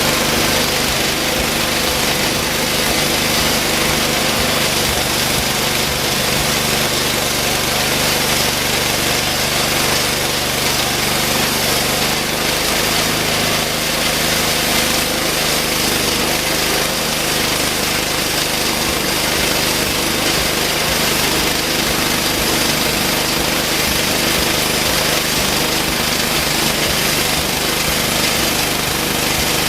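Homemade band sawmill running steadily under a small engine, its band blade sawing lengthwise through a hard post oak log: a constant engine drone under a dense sawing hiss.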